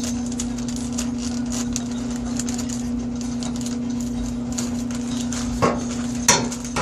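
A package being opened by hand: a steady run of small clicks, scrapes and rustles, with two louder clattering knocks near the end, over a steady low hum.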